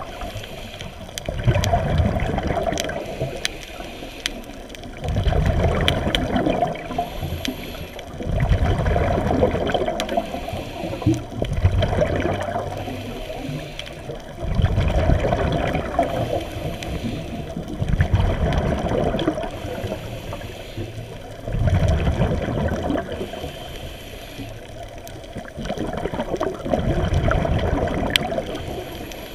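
Scuba diver's regulator underwater: bursts of exhaled bubbles rumbling and gurgling every three to four seconds, with quieter breaths drawn in between.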